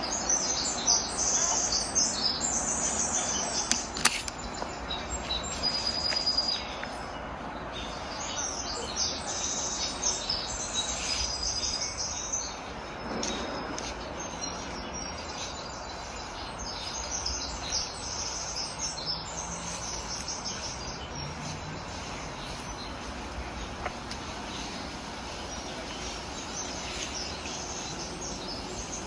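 Small birds chirping in rapid, high-pitched twittering runs, busiest in the first half and sparser later, over a steady outdoor background noise.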